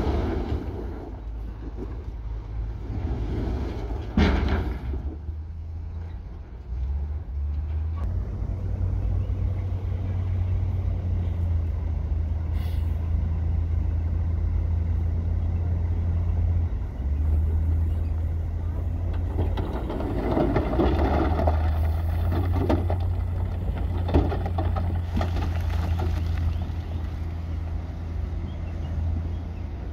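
Heavy diesel construction machinery running with a steady deep engine hum. Louder bursts of mechanical noise rise over it about four seconds in and again between about twenty and twenty-six seconds in.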